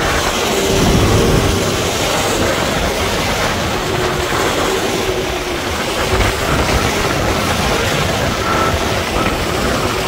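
Heavy diesel road-construction machinery running with a steady rattling rumble and a faint whine over it.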